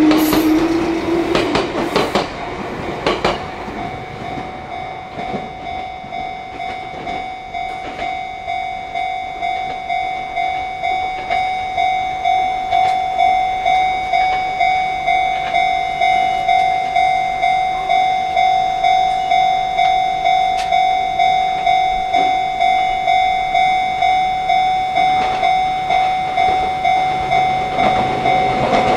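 Railway level crossing warning bell ringing in an even repeating rhythm, about one and a half strikes a second, growing louder from a few seconds in. Over the first three seconds a train passes, its motor whine rising and its wheels clicking over the rail joints.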